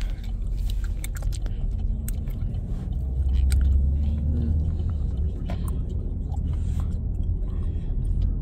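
Steady low rumble of a moving car heard from inside the cabin, swelling for a moment about three seconds in, with the wet clicks and smacks of someone chewing noodles close by.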